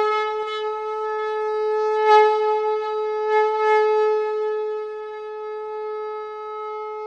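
Conch shell (shankha) blown in one long, steady note.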